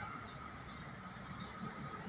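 Outdoor town ambience: a steady low hum of distant traffic, with a few faint high bird chirps.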